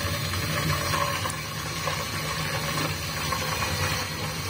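Raw chicken pieces sizzling in hot cooking oil in a frying pan as they are added, a steady sizzle with a low hum underneath.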